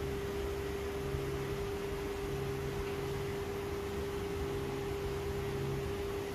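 A steady hum: one held tone over a background hiss.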